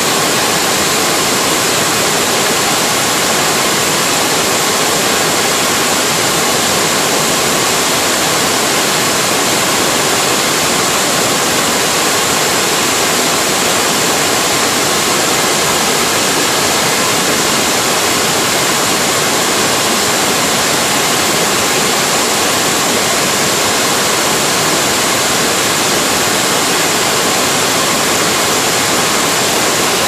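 River water pouring over a mill dam's spillway and crashing down a rocky cascade: a loud, steady rush of whitewater.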